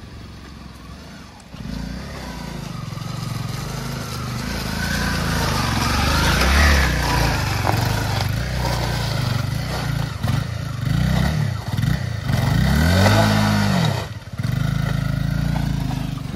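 Motorcycle engine running and revving, getting louder about a second and a half in. Near the end the pitch rises and falls several times as the throttle is blipped.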